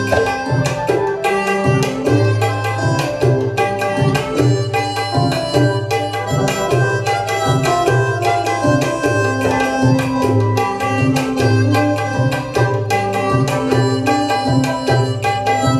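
Harmonica playing the melody of an Assamese Bihu song over keyboard and guitar, with tabla keeping a fast, steady rhythm.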